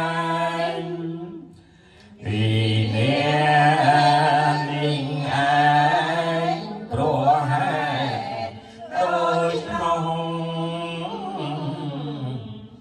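Group of Khmer Buddhist devotees chanting in unison from chant books, a sustained sing-song recitation on a steady reciting pitch. It breaks off briefly for breath about two seconds in and twice more near the middle.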